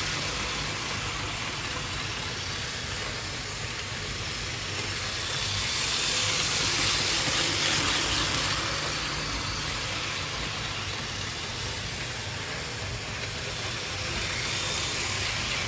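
HO-scale Ibertren Talgo model train running fast on its track: the steady whir of its pancake motor and the noise of its wheels on the rails. The sound grows louder about six to eight seconds in, then eases off.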